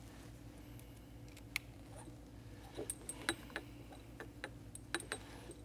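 Light metallic clicks and ticks as the set screw in the link cable's barrel coupler on a dropper seat post is tightened down, scattered and irregular, with a cluster of them about three seconds in.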